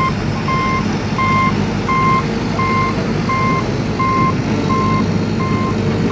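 A vehicle's reversing alarm beeping at an even pace, about one beep every 0.7 seconds, over the steady low rumble of a running engine.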